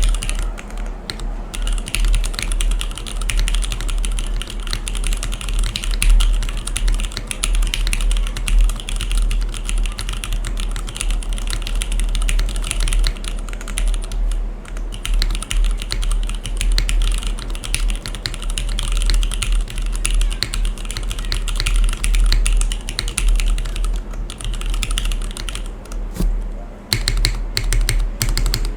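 Continuous fast typing on a mechanical keyboard, a Bisoromi RS60 aluminium case with a carbon fibre plate, stock Cherry MX Black linear switches and GMK Deku keycaps. The keystrokes form a dense clatter, broken by short pauses about halfway through and near the end.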